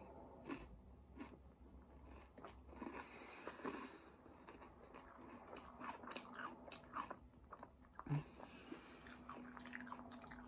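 Faint chewing and crunching of a mouthful of Franken Berry cereal in milk, with many small irregular clicks and crackles.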